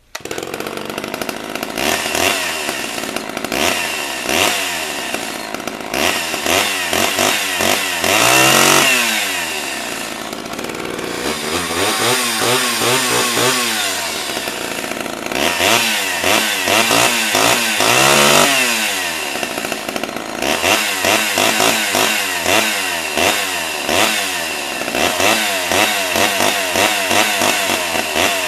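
Large old Homelite two-stroke chainsaw running and being revved repeatedly, its pitch climbing to a high scream and dropping back toward idle several times.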